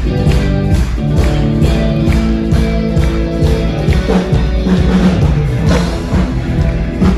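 Music with a steady drum beat over held low notes and chords.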